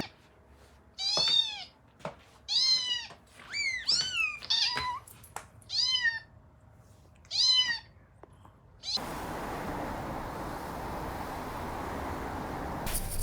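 A domestic cat meowing repeatedly: about six short meows, each rising and then falling in pitch. They are followed by a steady background noise from about nine seconds in.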